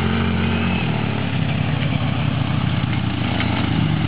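Utility quad bike (ATV) engine running as it drives across grass toward the listener, growing louder. The engine note drops about a second in and rises again near the end.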